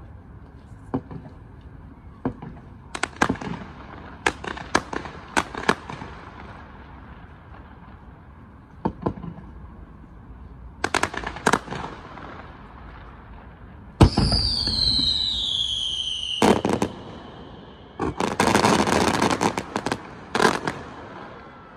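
Fireworks going off: a run of sharp bangs, then about fourteen seconds in a whistling shell with a falling whistle, and a dense crackling burst near the end.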